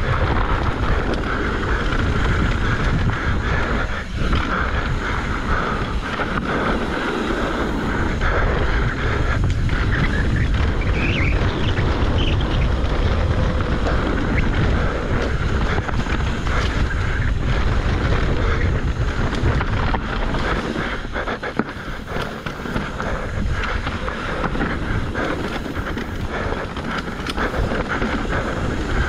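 Wind buffeting the microphone and mountain bike tyres rolling fast over a dirt trail, with many short knocks and rattles from the bike over bumps and jumps.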